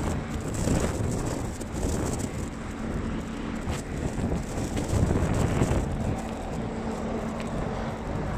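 Wind buffeting a phone's microphone as a low, uneven rumble. A faint steady hum sits under it in the first two seconds and again from about six seconds in.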